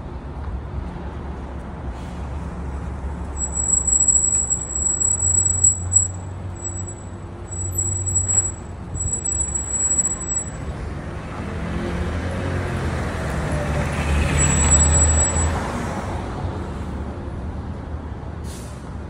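Street traffic with the low rumble of a heavy road vehicle's engine, and a high-pitched squeal that comes and goes for several seconds. A vehicle then swells past, loudest about three-quarters of the way through, with a brief squeal again.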